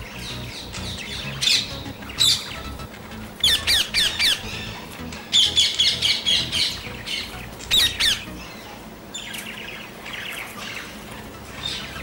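Parrots squawking: a run of short, harsh calls in quick clusters, densest in the middle, with fewer and quieter calls near the end.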